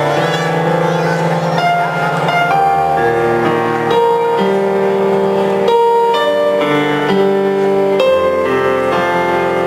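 A piano played live: a slow piece of held notes that change about once a second.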